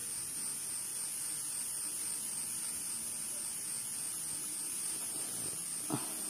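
Quiet outdoor ambience: a steady high-pitched hiss with nothing else prominent, and one short soft sound near the end.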